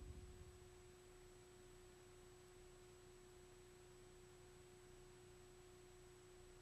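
Near silence with a faint steady tone underneath, after a louder sound fades out in the first half second.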